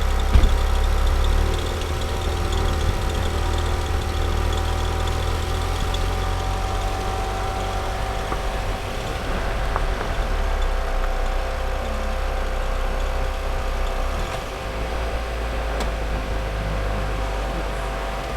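A vehicle engine running steadily with a low rumble, and a single sharp knock about half a second in.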